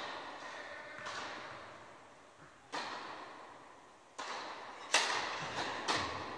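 Tennis ball impacts, the sharp hits of racket on ball and ball on court during serves and rallies, five in all with the loudest about five seconds in. Each hit is followed by a long echo.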